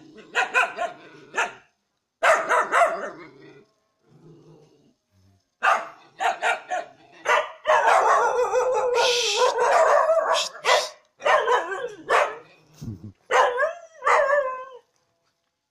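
Caged kennel dogs barking in repeated bursts of a few barks at a time, with short pauses between them.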